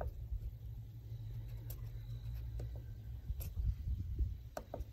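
Wind rumbling on the microphone, with a few faint, sharp clicks a second or more apart as buttons on a Generac Evolution 2.0 generator controller's keypad are pressed.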